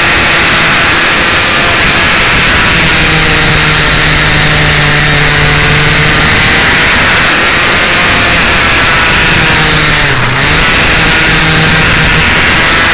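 Sport motorcycle engine running at high revs while riding, buried under heavy wind rush on the microphone. The engine note holds fairly steady, then briefly drops and recovers about ten seconds in.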